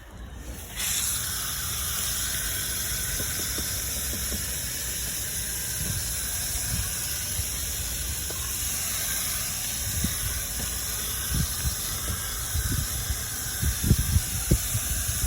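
Steady hissing spray of acid coil cleaner being sprayed onto an air-conditioning package unit's coil, starting about a second in, with a few light knocks near the end.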